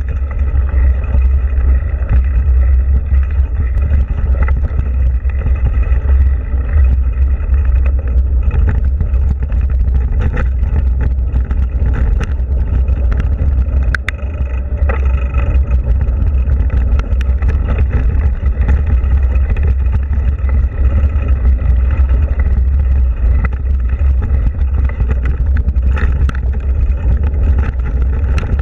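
Mountain bike rolling along a dirt-and-gravel trail, heard through a bike-mounted camera: a loud, steady low rumble of wind and trail vibration on the microphone, with scattered clicks and rattles from the bike over the stones.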